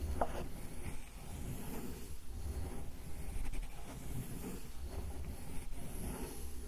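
Sumi ink stick being ground on a stone inkstone (suzuri): a steady low scraping rub that swells and eases, with a brief squeak just after the start.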